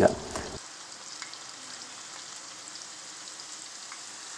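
Jackfruit slices deep-frying in well-heated coconut oil in a heavy pan: a steady sizzle with a few faint crackles.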